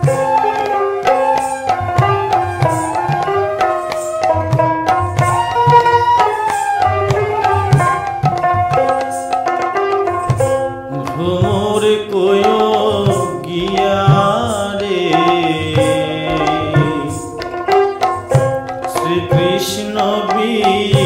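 Instrumental break in a Bengali Baul folk song: a sree khol drum plays a busy rhythm under a melody line. About halfway through, the drum's low strokes begin sliding up and down in pitch.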